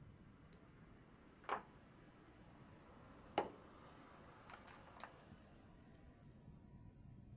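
A few sharp clicks of small hand tools handled on a phone-repair bench: two louder ticks, about one and a half seconds in and again about two seconds later, then a few faint ones.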